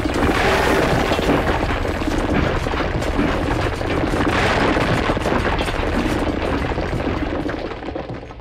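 A long, loud booming crash with dense rattling clatter that dies away toward the end.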